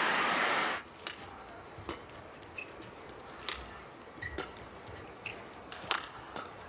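Loud crowd noise that cuts off suddenly about a second in, then a badminton rally in a quiet hall: sharp racket strikes on the shuttlecock roughly once a second, with a few short squeaks of court shoes.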